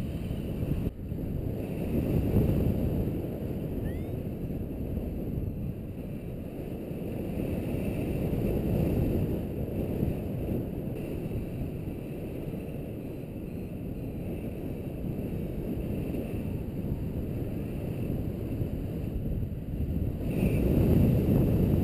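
Wind rushing over the microphone of a pilot-mounted camera during a paragliding flight, a steady rumbling buffet that swells and eases in gusts.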